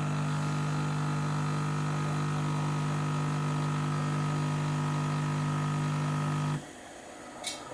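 Bosch Tassimo coffee maker's pump humming steadily while coffee dispenses from the pod, then cutting off suddenly near the end, followed by a brief high click.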